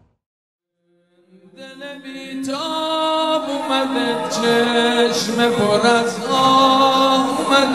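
Men's voices chanting a mourning lament (noha) in long held notes, fading in after about a second of silence.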